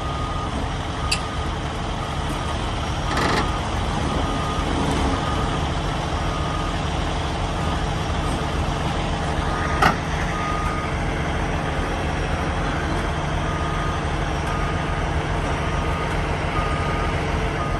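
Large Caterpillar excavator's diesel engine running steadily while its motion alarm beeps about once a second as the machine is maneuvered on a lowboy trailer. Sharp knocks come about three seconds in and, louder, about ten seconds in.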